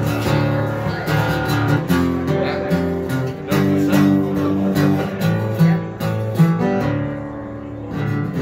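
Acoustic guitar strummed as an instrumental break between sung verses, chords over a moving bass line, easing off briefly near the end before the next strum.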